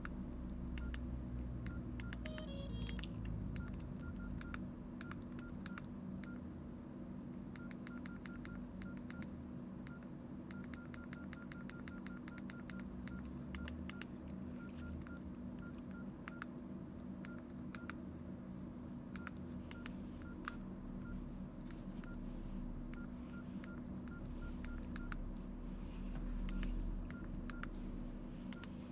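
Nokia N82 keypad tones: short, single-pitched beeps with key clicks, coming in irregular runs as the phone's keys are pressed over and over. A steady low hum sits underneath.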